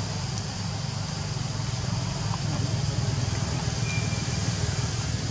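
Steady low rumbling background noise, with a short high whistle about four seconds in.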